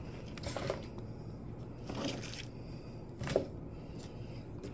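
Kitchen knife and cutting board: three soft knocks and scrapes, spread through the few seconds, as chopped spring onion is cut and handled on the board.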